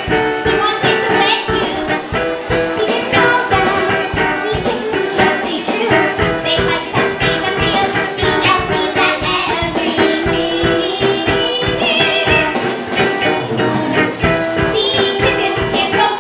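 Live band playing a song on two ukuleles with a drum kit keeping a steady beat, and women singing.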